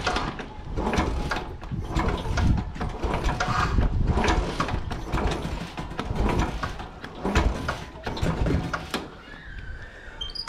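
Royal Enfield Classic 500 single-cylinder engine being turned over repeatedly without starting, to pump the fresh oil through after an oil change: a run of uneven mechanical clunks and knocks.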